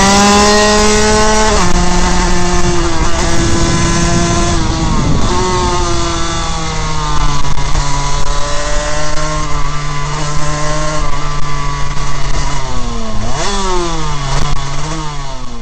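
Honda RS125 single-cylinder two-stroke race engine running hard, heard close up from a camera mounted on the bike, with wind rush. The revs shift with gear changes, hold steady down the straight, then drop and rise a few times near the end.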